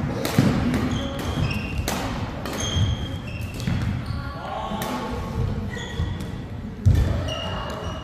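Badminton hall sounds: sharp smacks of rackets hitting shuttlecocks, the loudest about seven seconds in, and brief high squeaks of court shoes on the floor, with some voices.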